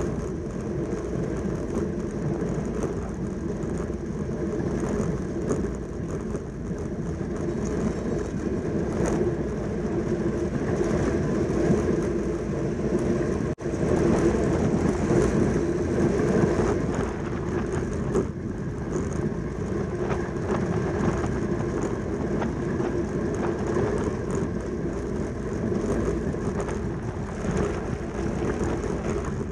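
Steady wind rush over the microphone with the hum of a track bicycle's tyres and chain at race speed. The sound drops out for an instant about halfway through.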